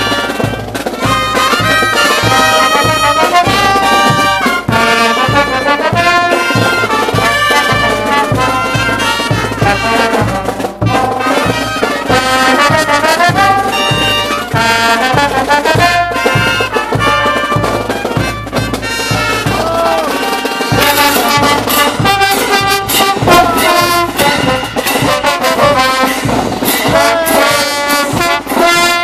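Street brass band playing a dance tune, horns carrying the melody over a steady, regular drum beat.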